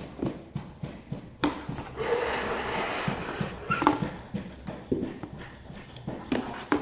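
Packaging being handled during an unboxing: a string of small knocks and clicks, with a stretch of rustling about two seconds in.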